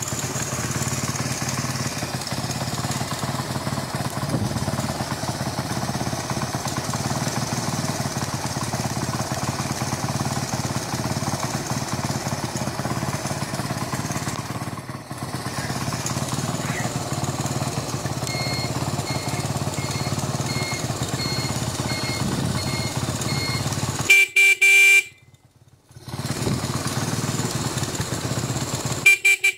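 Honda CD-70's single-cylinder four-stroke engine idling steadily. Partway through, a high beep pulses about twice a second for about five seconds, then the motorcycle's electric horn honks once for about a second and once more briefly at the end.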